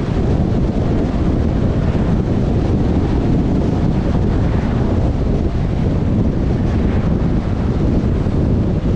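Steady low rumble and rush of a car driving along, from road and wind noise, with no change in level.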